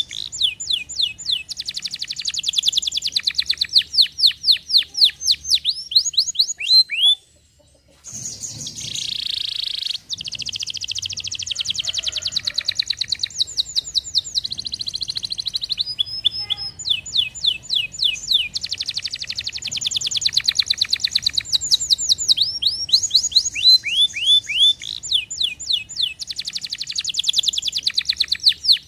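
Domestic canary singing: long, fast trills of repeated downward-sliding chirps, one run after another, broken by a brief silence about a quarter of the way through.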